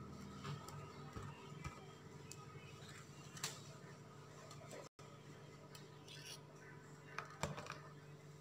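Faint clicks and light scrapes of a metal spoon against a plastic mixing bowl as a spoonful of SP cake emulsifier is scraped in over raw eggs, a handful of separate taps over a low steady hum.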